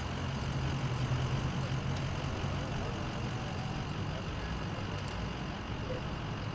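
A large vehicle engine idling with a steady low hum, somewhat louder in the first couple of seconds, over a steady background hiss.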